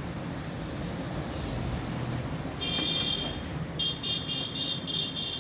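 Vehicle horn sounding over low traffic noise: one short toot about halfway through, then a quick run of short beeps, several a second, to the end.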